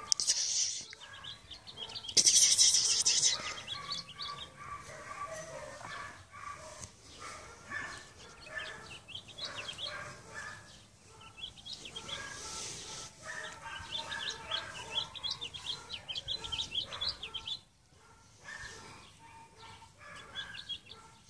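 Small birds chirping and twittering continuously, with two loud rushes of noise in the first few seconds.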